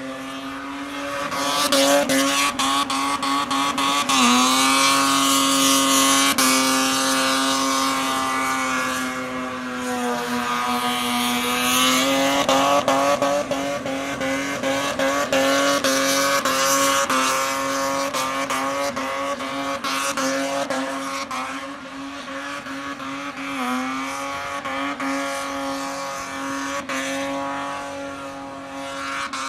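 Ford Barra straight-six in a Falcon ute doing a burnout. The engine is held at high revs with its pitch sagging and climbing back a few times, over the steady screech of the spinning rear tyres.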